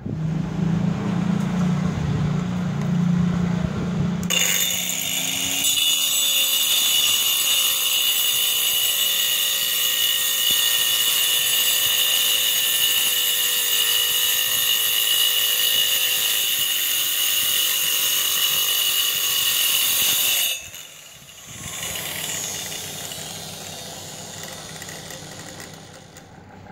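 Angle grinder running with a steady high whine for about sixteen seconds, starting about four seconds in and cutting off abruptly; a lower, wavering hum comes before it.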